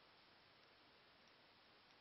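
Near silence: faint steady room hiss, with very faint regular ticks about every two-thirds of a second.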